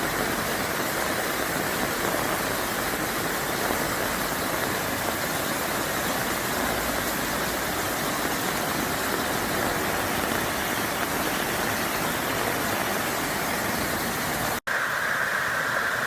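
Steady, even rush of water, with a momentary dropout near the end.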